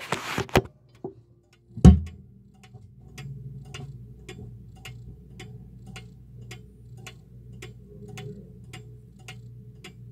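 Howard Miller grandfather clock movement ticking steadily, heard from inside the clock case. It starts after some handling knocks and a loud thump about two seconds in.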